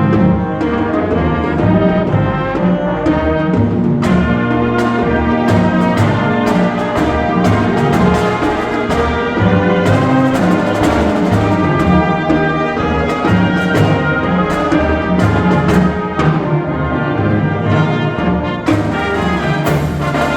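Marching band playing: brass sustaining full chords over drums, with sharp percussion hits coming in thick about four seconds in.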